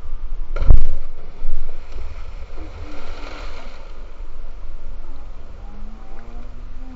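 A cliff jumper's body hits the sea with a sudden loud splash about a second in, over steady wind rumble on the microphone.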